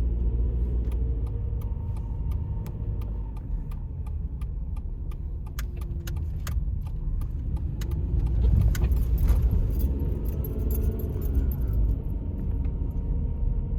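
A car driving: a steady low rumble with many small clicks and rattles throughout.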